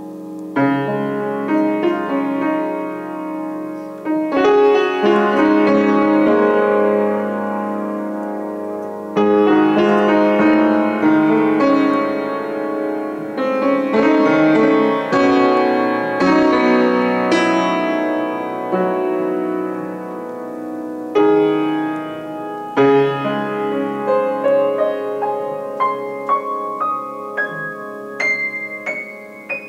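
Solo upright piano playing full, sustained chords struck every few seconds, then a run of single high notes climbing up the keyboard near the end, getting quieter.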